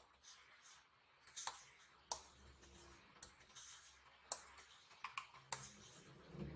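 Stylus nib tapping and sliding on the screen of a Huion Kamvas Pro 16 pen display while drawing: faint, sharp clicks at uneven intervals with a soft scratchy hiss between them.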